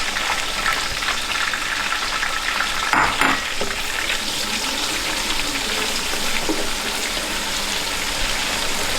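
Onions frying in hot oil in a pot, sizzling and crackling steadily, with a brief louder burst about three seconds in.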